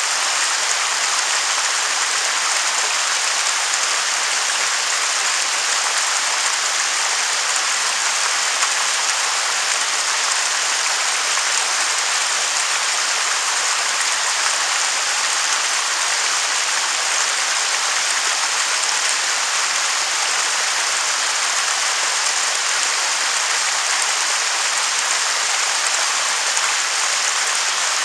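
Waterfall rushing: a steady, unbroken hiss of falling water, bright, with little low rumble.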